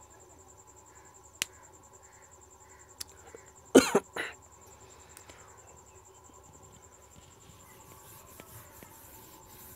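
A person coughs twice in quick succession about four seconds in, over a faint, steady, high-pitched pulsing trill. A couple of sharp clicks come before the coughs, and light rustling follows near the end.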